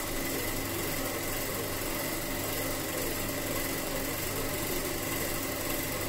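Steady mechanical hum with a faint high whine, running evenly without change.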